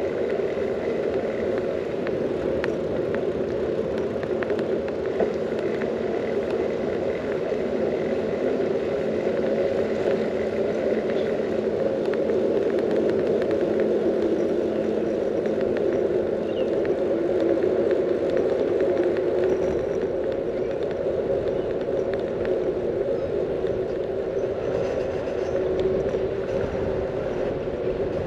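Bicycle rolling along an asphalt street: a steady rushing noise of tyres and wind.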